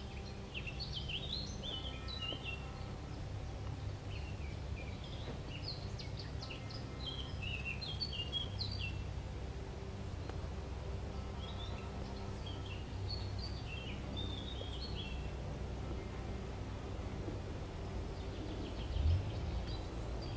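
Woodland birds singing in short, quick chirping phrases, in a run through the first half and again briefly in the middle, over a steady low rumble on the microphone. A single soft bump comes near the end.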